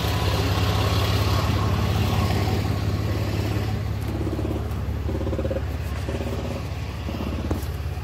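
A vehicle engine idling with a steady low hum, with a few short faint pitched tones over it in the second half.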